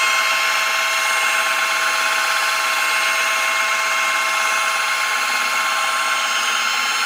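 A washing-machine drive motor spinning an LG front-loader direct-drive motor used as a generator, giving a steady whine with a few high held tones over an even rushing hiss.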